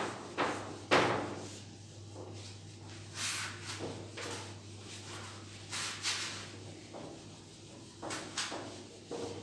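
A handheld duster rubbing across a whiteboard in a series of short wiping strokes, the loudest about a second in, over a steady low hum.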